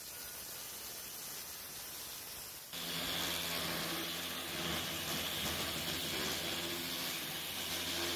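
A steady hiss. About three seconds in, a corded random orbital sander comes in suddenly and runs steadily on a sheet of aluminium plate, with a low hum and a high whine.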